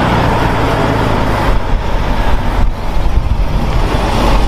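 Semi-truck hauling a shipping container, its diesel engine running with a steady low rumble as it drives slowly through a turn.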